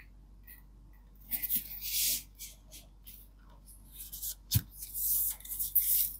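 Hands unpacking a book from its paper packaging: irregular bursts of rustling and scraping, with a sharp tap about halfway through.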